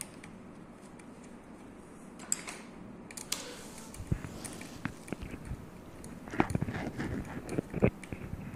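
Scattered small clicks and knocks of a screwdriver working the tool head mounting screw on a 3D printer's carriage, along with handling of the tool head. They start about three seconds in and come more often near the end.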